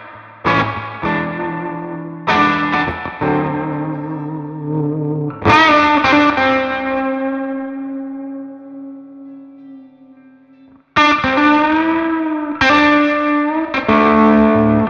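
Ivison Dakota electric guitar with Firebird-style pickups, played through a Magnatone Twilighter amplifier. Chords and single notes are struck and left to ring out, with a few notes bent in pitch. A long ringing chord dies away at about ten seconds, and a new phrase starts about a second later.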